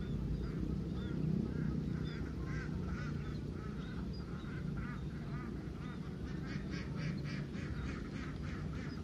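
Ducks quacking, with scattered short calls and then a quick run of quacks, about four or five a second, from about six to eight seconds in, over a steady low outdoor hum.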